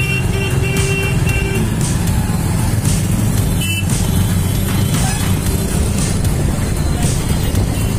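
Motorbike riding slowly through town traffic: its engine running steadily, with road and traffic noise. For about the first two seconds a high pitched tone sounds in short broken pieces over it.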